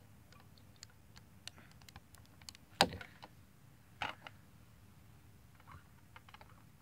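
Plastic LEGO pieces clicking and knocking as they are handled, with scattered light clicks and one sharper clack about three seconds in, then another about a second later.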